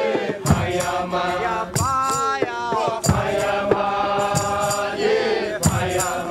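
Rastafarian Nyabinghi chant: a group of voices singing long, held lines together, sliding between notes, with occasional drum strokes.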